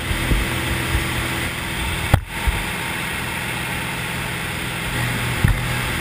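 Steady drone of a light aircraft's engine and propeller heard from inside the cabin, mixed with rushing wind, with a couple of brief knocks, about two seconds in and again near the end.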